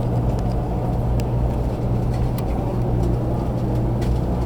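Steady running noise inside the passenger cabin of a 500 series Shinkansen: a low hum and rumble from the moving train, with a few faint ticks.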